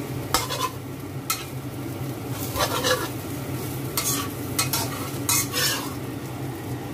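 Metal spatula scraping and sliding across a wok, several irregular strokes, as pieces of egg-and-clam omelette are lifted out, with a light sizzle from the hot pan.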